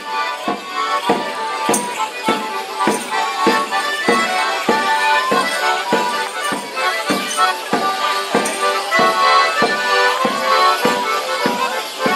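Street folk band playing a morris dance tune, with the accordion carrying the melody over a steady percussive beat of a little under two strikes a second, and a jingling of tambourine or bells.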